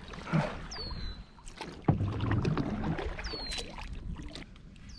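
Kayak being paddled: paddle strokes splashing and dripping in the water, with one sharp knock about two seconds in. A bird gives a short whistle sliding down in pitch, three times.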